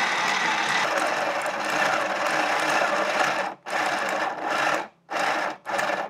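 Battery-powered clear plastic model four-cylinder engine running, its small electric motor driving the pistons and gears with a steady mechanical whir. From about three and a half seconds in it cuts out and restarts three times, which the owner takes for dying batteries.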